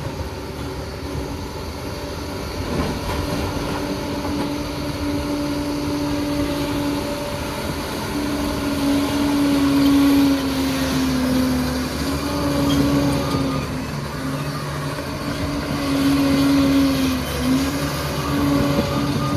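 An engine running, a steady hum that dips briefly in pitch a few times.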